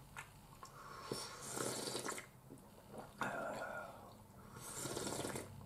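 A person slurping hot soup from a cup: two long, airy sips about three seconds apart.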